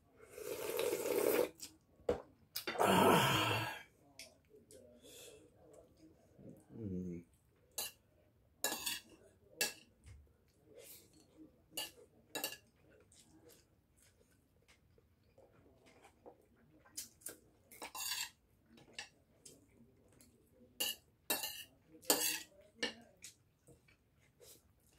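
Loud slurping of hot soup from a ceramic bowl, twice in the first few seconds, followed by a short throaty vocal sound. After that, scattered light clinks and taps of dishes and a plate as food is eaten by hand.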